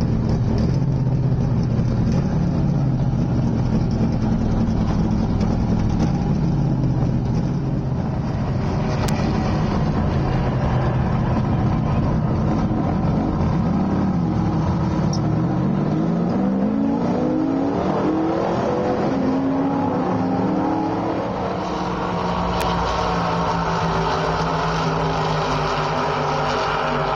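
NASCAR stock-car V8 engines running loudly at a steady speed, then one revs up with a rising pitch for several seconds about halfway through, as a car accelerates away, before settling back to a steady drone.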